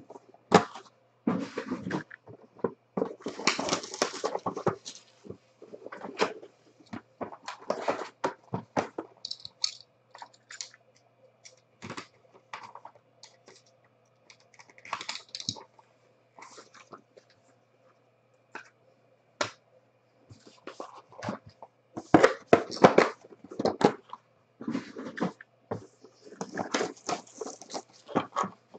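Cardboard trading-card boxes and their packaging being handled and opened: irregular knocks, scrapes and rustles in clusters, thinning out for several seconds in the middle.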